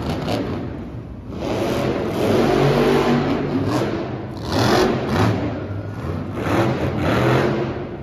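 Monster truck engine revving hard in repeated surges, its pitch rising and falling.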